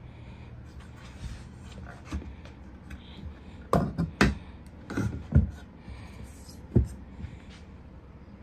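Handling knocks and rubbing as a 10-inch AMW Audio 900MB midbass speaker is turned over and set down on a glass counter: a few sharp knocks between about four and seven seconds in, over a faint low hum.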